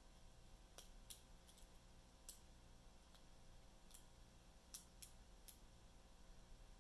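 Faint, scattered metallic clicks of a lock pick working the pin tumblers of a small padlock under tension, about nine irregular clicks as pins are lifted and set.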